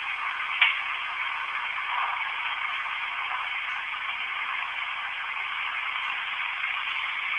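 Steady hiss with one faint click a little over half a second in.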